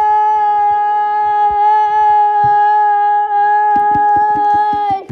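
One loud, steady high-pitched note held unbroken for about five seconds, rich in overtones, cutting off abruptly near the end. From about four seconds in, quick regular taps join it at roughly five a second.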